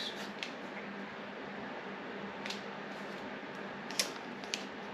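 Quiet room tone with a steady hiss and faint hum, broken by a few light clicks and taps from small unboxed items being handled, the sharpest about four seconds in.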